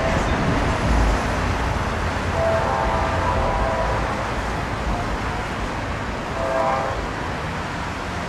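Nathan K5LA five-chime air horn on an NJ Transit GP40PH-2 locomotive, blowing the grade-crossing signal as the train approaches. A longer blast comes about two and a half seconds in and a short one about six and a half seconds in, over steady road traffic noise.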